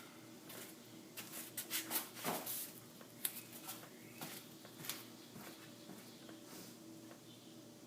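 Light clicks, knocks and rustles of handling, bunched about one to three seconds in, the loudest near two seconds, then a few scattered ticks, over a faint steady hum.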